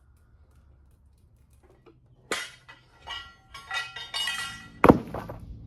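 Metal clanking and clinking as steel tools are handled: a sharp clank about two seconds in, a run of short ringing clinks, and a loudest knock near the end.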